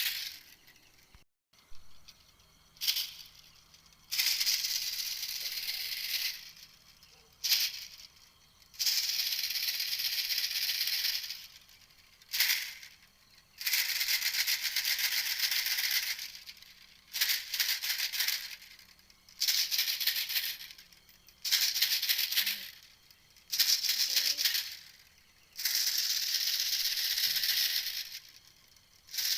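Repeated dry, high-pitched rattling calls of the ติวเม็ดแตง played as a hunting lure recording, in about a dozen bursts of half a second to three seconds with short silent gaps between them.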